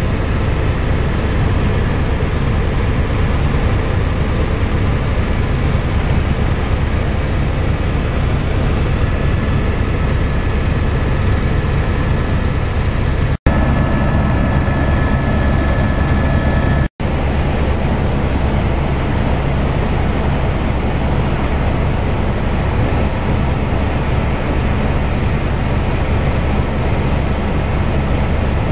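Helicopter in flight: steady, loud rotor and turbine noise with a deep low drone. The sound cuts out for an instant twice in the middle.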